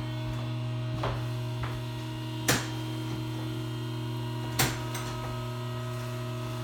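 Electric lift motor of a hi-lo chiropractic table humming steadily as it raises the table all the way up. A few sharp clicks sound over it, the two loudest about two and a half and four and a half seconds in.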